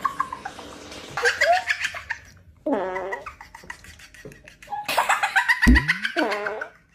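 A person laughing in repeated short bursts. About five and a half seconds in comes a brief fart sound effect, a sharp downward-sweeping blurt.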